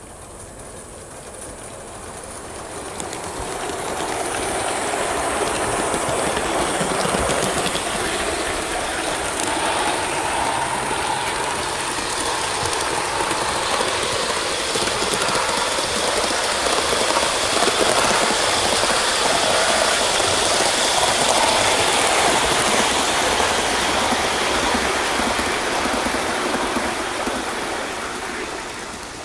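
Gauge one live-steam model of a Bulleid West Country class pacific, No. 34009, running with its train of coaches, steam and wheels clattering on the rails. The sound swells over the first few seconds as the train comes close and drops away near the end.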